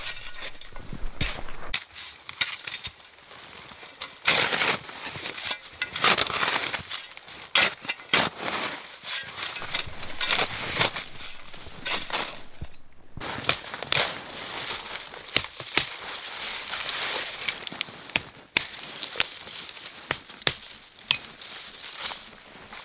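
Plastic snow shovel digging into and throwing snow, a busy run of crunching scrapes and sharp knocks, with a short break about halfway through. Near the end, spruce branches crackling and snapping as boughs are broken off.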